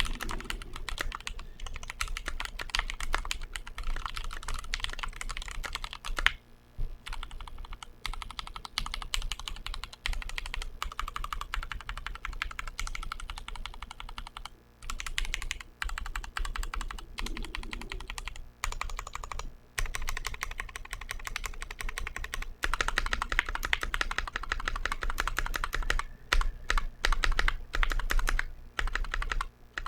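Continuous fast typing on a Glorious GMMK Pro mechanical keyboard with TTC Wild linear switches and JTK Suited Assassin keycaps: a rapid stream of keystrokes broken by a few short pauses, growing louder in the last third.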